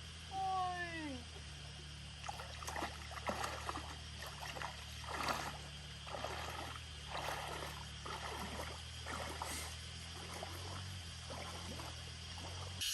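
Water splashing and sloshing in irregular swishes, as from hands or a net working in shallow stream water, over a steady low hum. Near the start comes one short call that falls in pitch.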